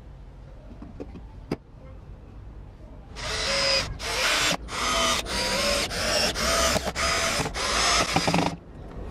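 Cordless drill driving screws into a wooden speaker box panel: a string of short motor runs with brief pauses between them, lasting about five seconds. Two light clicks come about a second in, before the drilling starts.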